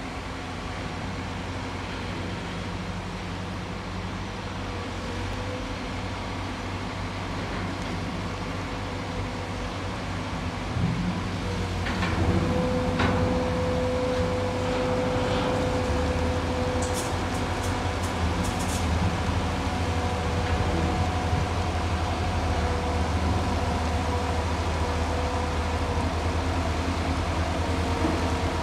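Truck-mounted mobile crane's diesel engine running under load while hoisting a gantry crane girder: a steady low hum with a held tone that comes and goes, growing louder about twelve seconds in. A few sharp clicks come through in the middle.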